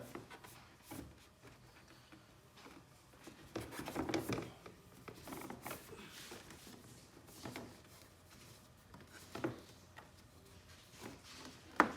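Scattered clicks, knocks and rubbing as an actuator and chair frame parts are handled and slid into place, with a busier stretch about four seconds in and one sharp click near the end.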